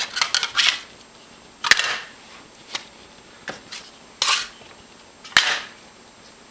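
Hands working soft, tacky bread dough on a tiled counter: a string of sharp sticky smacks and short rustles, spaced irregularly, as the dough is folded, peeled off the tiles and patted.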